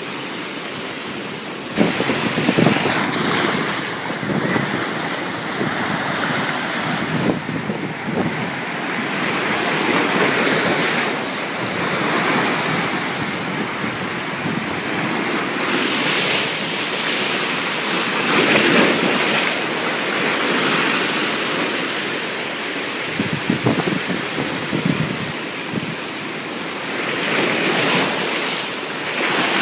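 Ocean waves surging and breaking, swelling and easing every few seconds, with wind buffeting the microphone.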